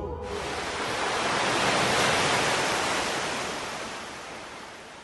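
Sea waves breaking and washing up a beach, swelling to a peak about two seconds in and then slowly fading out.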